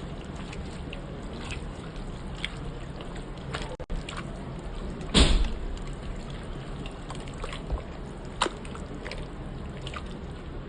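Wet kitchen sounds: liquid and soft food moving, with scattered light clicks and one louder knock about five seconds in.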